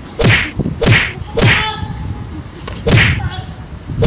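Whip cracks in quick succession, each a sharp lash sweeping down in pitch: three close together, a pause, then two more, one right at the end. They are the sound of a beating.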